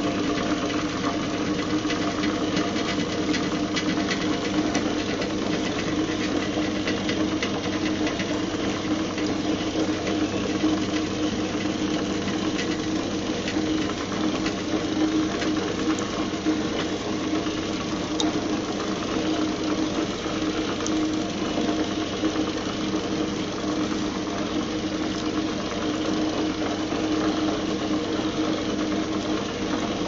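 Fensa turbine washing machine running a wash: a steady motor hum with the turbine churning the soapy water in the tub.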